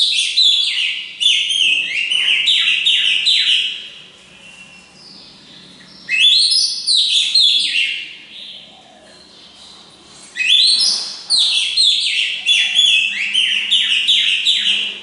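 Oriental magpie-robin singing: three long bursts of rapid, loud whistled notes, most of them quick falling sweeps, with short pauses between the bursts.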